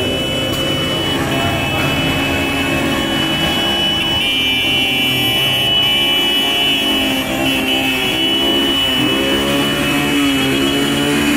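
Many small motorcycles running together, their engines idling with revs rising and falling here and there.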